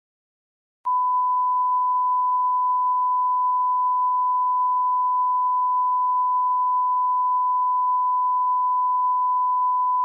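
Censor beep sound effect: a single steady high-pitched tone that starts abruptly about a second in and holds unchanged for about nine seconds, then cuts off.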